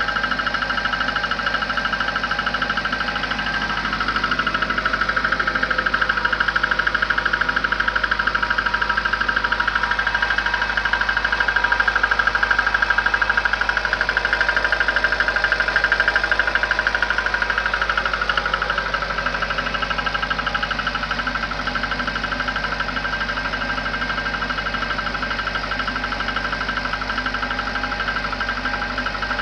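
VAZ-2110 16-valve engine idling cold with a fast, even knocking, a little louder for a stretch near the middle. The owner says this knock fades as the engine warms, dying out by about 80 °C.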